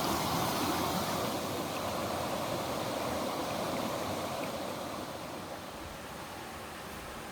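Valley stream water rushing steadily over rocks, easing a little about five seconds in.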